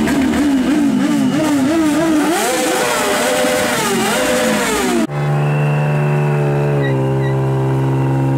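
Several sport motorcycles revving their engines in quick, uneven blips, the pitches rising and falling against each other. About five seconds in, a sudden change to a Chevrolet Camaro's engine held at steady high revs with a thin high squeal over it, as the car spins its rear tyres in a burnout.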